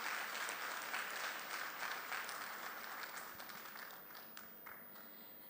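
Audience applauding, the clapping dying away over about four seconds.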